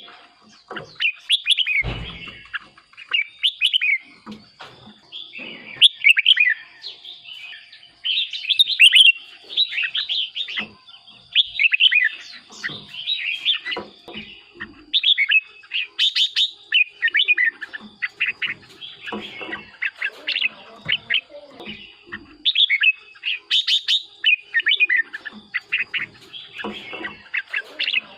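Red-whiskered bulbul singing loud, rapid, repeated whistled and warbled phrases with hardly a pause.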